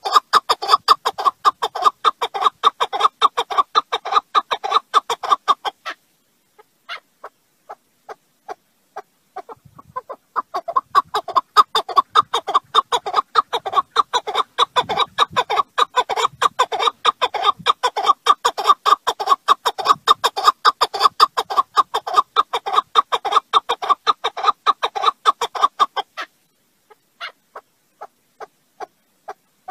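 Partridge (Alectoris, 'keklik') calling: a rapid run of repeated clucking 'chuck' notes, several a second, which thins to a few scattered notes after about six seconds, resumes in a long run a few seconds later, and drops back to scattered notes near the end.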